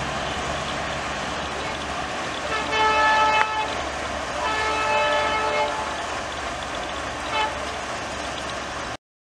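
Indian Railways diesel locomotive horn sounding in three multi-tone blasts, the first two about a second long and the last short, over the steady rumble of a passing train. The sound cuts off abruptly near the end.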